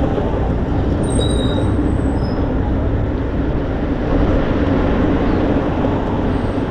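Riding noise from a Super Soco CUx electric scooter moving at about 20 km/h: a steady rushing rumble of wind and tyres on the road.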